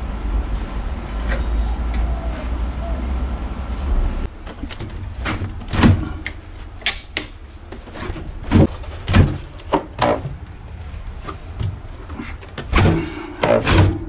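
Steady low rumbling noise that cuts off abruptly about four seconds in, followed by a string of irregular sharp knocks and clacks from parts and tools being handled.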